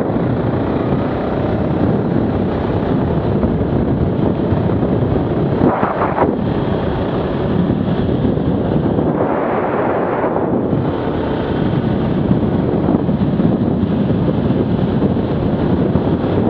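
Arctic Cat 650 H1 ATV engine running at speed, heavily buffeted by wind on the microphone, with two short swells in the sound, about six and ten seconds in.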